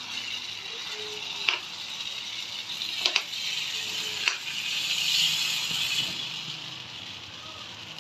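Wheat-flour and jaggery malpua batter sizzling in oil on a hot iron tawa while it is spread out with a leaf, a steady hiss that swells a little about halfway through. A few sharp clicks come in the first half.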